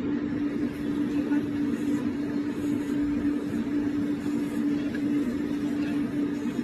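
Electric nail drill running steadily at one even pitch while it grinds down a dog's toenails.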